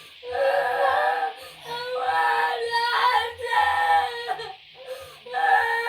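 A young child crying in long, high, held wails with short breaks for breath between them.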